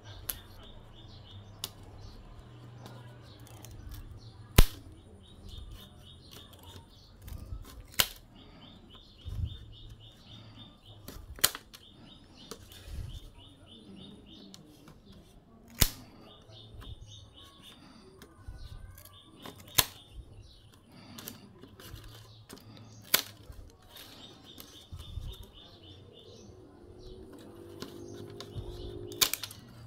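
Knife cutting through bamboo strips: sharp single clicks, one every three to four seconds, as the strips are trimmed.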